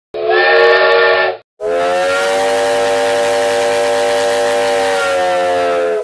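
Steam train whistle: a short blast of about a second, then after a brief break a long blast of about four seconds. Several tones sound together over a hiss of steam, and the pitch sags slightly as the long blast ends.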